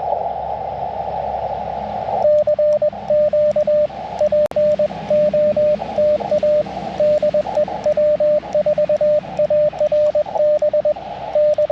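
Elecraft KX2 transceiver in CW mode. For about two seconds there is only the narrow hiss of band noise through its CW filter. Then a steady mid-pitched beep keys on and off in Morse code dots and dashes, with the receiver hiss muted while it sounds, as when the operator is sending and hearing his own sidetone.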